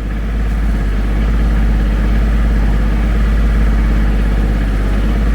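Ford 1520 tractor's diesel engine running steadily while the loader backhoe digs, a constant low rumble with no change in speed.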